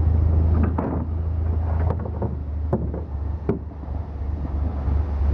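Steady low rumble with about five short, sharp knocks in the middle.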